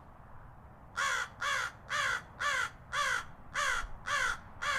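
Crow cawing, a run of about eight harsh, falling caws at about two a second, starting about a second in.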